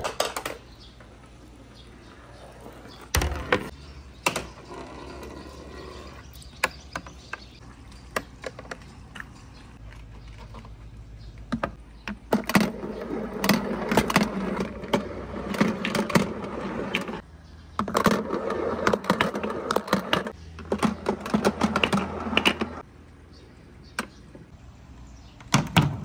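Marbles and balls rolling and clattering along the plastic gutter slides and wooden tracks of a marble run, with scattered sharp clicks as they strike and drop. About halfway in, the rolling becomes a dense, steady clatter that runs for several seconds, broken by short pauses.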